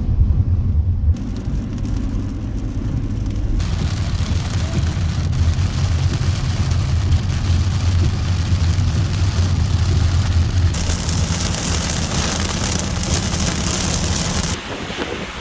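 A car driving in the rain: a steady low road rumble under a hiss of rain, changing abruptly a few times as the clips cut.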